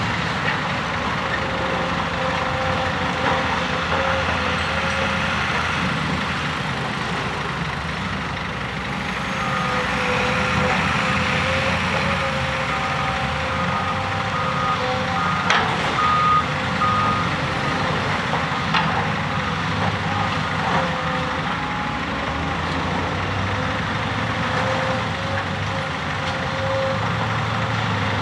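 Diesel engine and hydraulics of a Volvo EC240B NLC tracked excavator running steadily while it works with demolition shears. Through the middle stretch a reversing alarm sounds a row of short, evenly spaced beeps, and a few sharp knocks of broken masonry come a little past halfway.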